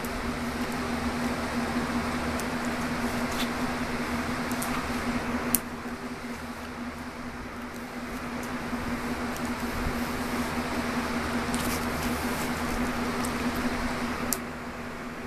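Bedsheet fabric rustling as a cat teaser wand's string is dragged across it and a cat pounces and treads on it, with a few sharp clicks, over a steady low hum. The rustling cuts off sharply twice, about five and a half seconds in and again near the end.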